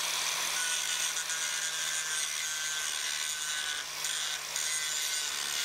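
Angle grinder with a 1/8-inch dual-purpose grinding wheel grinding out the end of a fillet weld on edge: a steady harsh grinding over the motor's even hum, briefly lighter about four seconds in.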